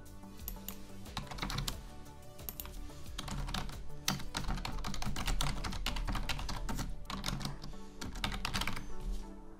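Typing on a computer keyboard: rapid runs of key clicks, thickest through the middle and latter part, over quiet background music.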